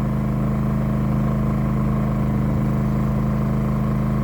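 WEN 56380i 3800-watt inverter generator running steadily in eco mode, a constant engine drone with no change in speed.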